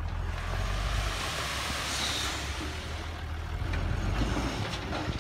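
Hyundai 5-ton dump truck's diesel engine running as the hoist tips the bed, with a rushing noise from the load of soil sliding out of the raised bed.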